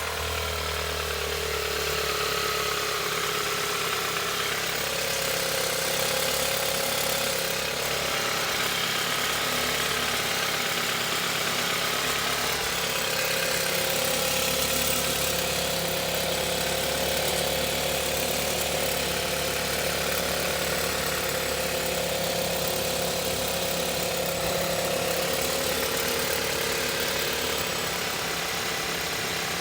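2018 Volkswagen Tiguan Allspace engine idling steadily with a rattling noise that the owner attributes to the fuel rail.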